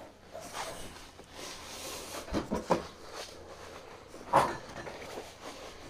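Portable stainless-steel tent wood stove being handled, with stovepipe sections packed inside it: a few light metal knocks and clunks amid quiet rustling, the loudest about three-quarters of the way through.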